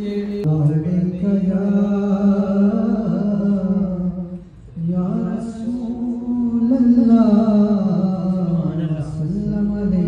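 A man singing a naat unaccompanied into a microphone, drawing out long melismatic notes. There is a brief break for breath about four and a half seconds in.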